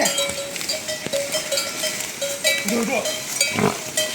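Livestock bells clanking over and over as a herd of goats and sheep moves, with a bleat about three seconds in.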